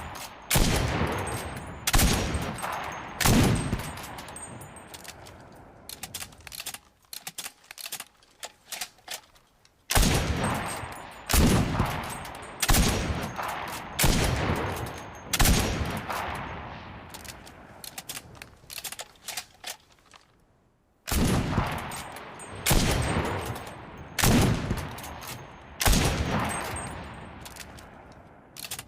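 Lee-Enfield bolt-action rifle firing in three quick strings of shots about a second and a half apart, each shot ringing out with a long echoing tail. Between the strings there is a run of short metallic clicks.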